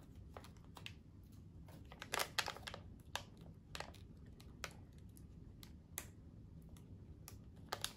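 Plastic candy wrapper crinkling as it is handled, in scattered short crackles, the loudest few about two seconds in.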